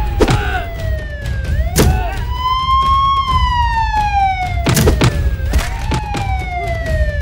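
Police siren wailing, its pitch climbing quickly and then sliding slowly down, over and over. Sharp hits from the fight cut through it, at the start, about two seconds in and near five seconds.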